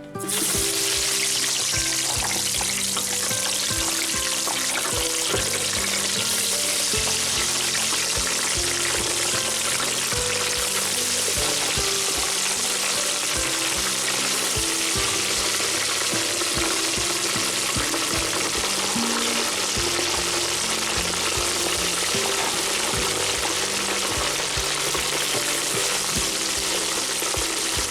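French fries frying in hot oil in a deep fryer: a loud, steady sizzle that starts abruptly as the fries go into the oil.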